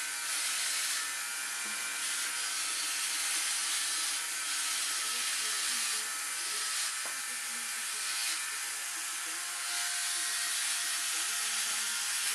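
Philips OneBlade electric trimmer running as it dry-shaves stubble on the cheek and jaw: a steady motor buzz with a high hiss from the oscillating blade, swelling and easing every second or two as it is drawn across the skin.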